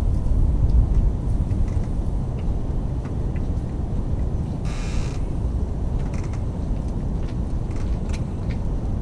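Light metallic clicks and creaks of hand tools at work in a Jeep CJ7's engine bay, over a steady low rumble, with a brief hiss about five seconds in.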